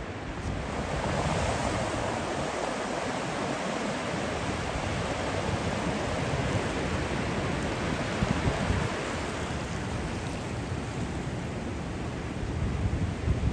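Steady wash of ocean surf breaking on a beach, with low wind rumble on the microphone growing near the end.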